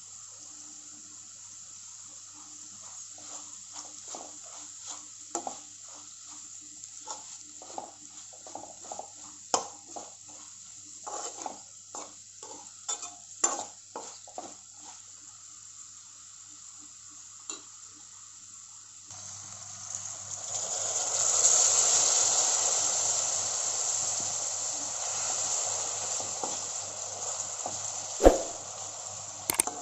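A spatula stirring and scraping food in a frying pan, with irregular clicks over a faint hiss. About two-thirds in, a much louder sizzle of food frying in hot oil starts and keeps going, with a single knock near the end.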